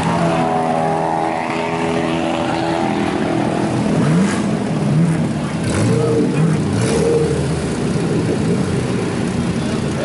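Race car engines running, with the revs rising and falling several times in the middle.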